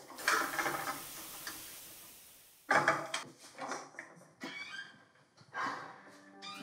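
Food sizzling in a frying pan on a gas burner, fading away over the first two seconds or so. Then a string of sharp clicks and knocks from a wooden door handle and door as it is opened and pulled shut.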